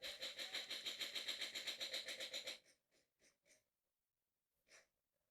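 Airsoft gun firing one sustained full-auto burst of about two and a half seconds, a rapid, even rattle that stops abruptly, followed by a few faint clicks.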